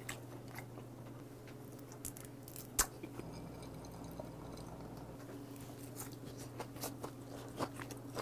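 Close-miked mouth sounds of someone eating: chewing and small smacks and clicks, with one sharper click about three seconds in. Around the middle come sips and swallows of a highball from a glass.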